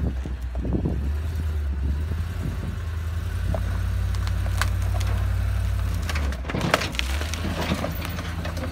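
Ford F-550 dump truck's engine running steadily in low gear as the truck crawls over a log-filled ditch. A few sharp knocks and cracks of wood come from under the wheels about six and a half seconds in.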